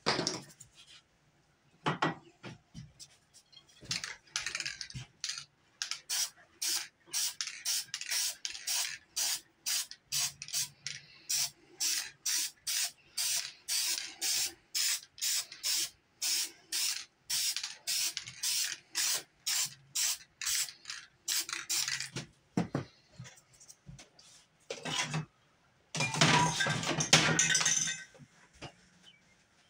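Spray paint can hissing in quick short bursts, about two or three a second, as black paint is dabbed on to build up clouds. Near the end comes a longer, louder burst of noise.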